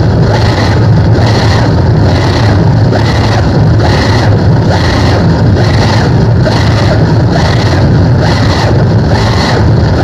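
Electric guitar played through a large board of effects pedals, giving a loud, dense, distorted drone that pulses evenly about one and a half times a second.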